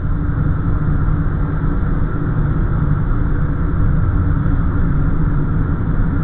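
A steady low rumble with faint humming tones in it, unchanging throughout.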